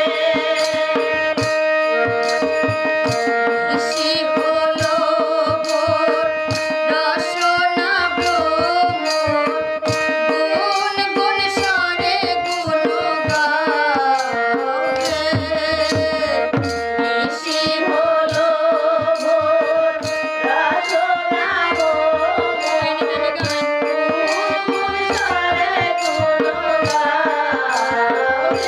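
Bengali devotional song (Hari sangeet) sung with tabla keeping a steady beat and held melody notes underneath; the singer's line wavers with ornamented vibrato.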